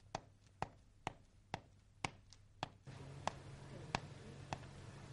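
Footsteps on stone steps, sharp single steps about two a second and slowing slightly. A faint steady low hum of room tone comes in about three seconds in.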